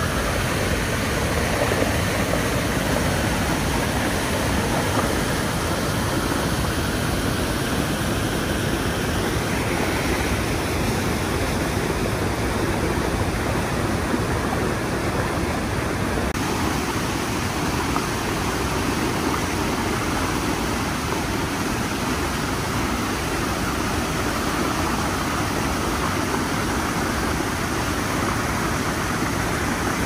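Maggia river rushing through a narrow rock gorge, whitewater pouring over a chute between boulders: a steady, loud rushing noise whose tone shifts slightly about halfway through.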